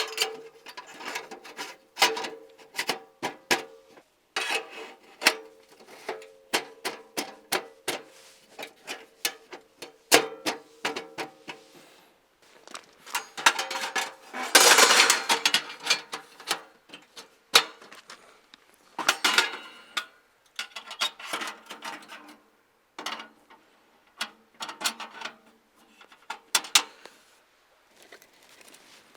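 Irregular knocks and clinks of hard objects being handled and set down, several with a short metallic ring, and a longer rustling burst about halfway through.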